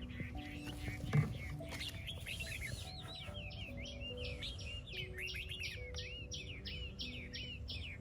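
Small birds chirping, a quick even run of repeated chirps in the second half, over soft background music of held notes. A dull thump about a second in.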